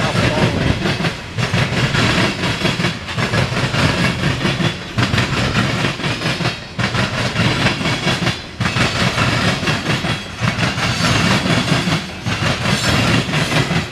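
Freight train of loaded covered hopper grain cars rolling past, its steel wheels clacking and rumbling over the rail joints. The noise swells and dips about every two seconds.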